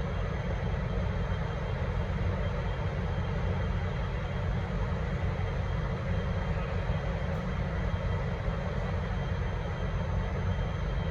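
Steady diesel rumble of a V/Line N class locomotive's engine, with the train's running noise, holding an even level throughout.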